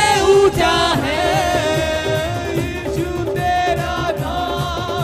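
Devotional worship music: a sung melody over a steady drum beat.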